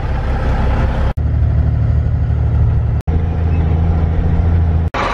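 Heavy diesel engine running steadily, a low drone, broken into short pieces by abrupt cuts about a second in, about three seconds in and near the end.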